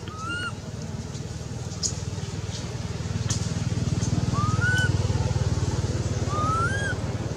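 A motor's low drone, swelling in the middle and easing off near the end. Short rising whistled calls come three times over it, with a few sharp clicks around two to three seconds in.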